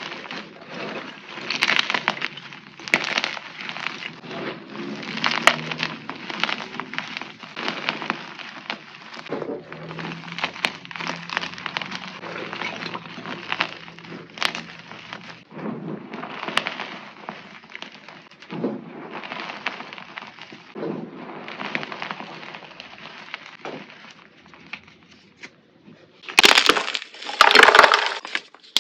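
Something crisp and brittle being crushed, a continuous run of crackling, snapping crunches, with the loudest burst of crunching near the end.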